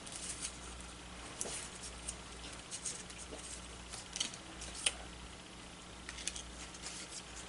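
Faint rustling and a few light ticks of small cardstock pieces being handled and pressed together while they are glued, over a low steady room hum.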